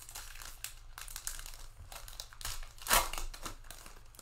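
Foil trading-card pack wrapper crinkling as it is handled and torn open, with one loud rip about three seconds in.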